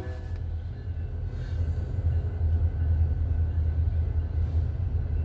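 BNSF train rumbling low and steady, with no horn sounding.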